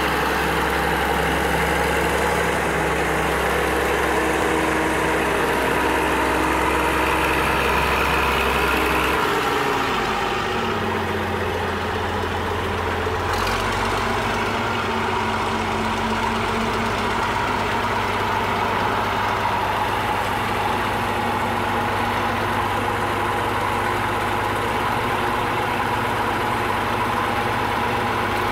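Caterpillar 120 motor grader's diesel engine running as the grader moves slowly across a dirt yard. The engine note shifts about a third of the way in and again near halfway.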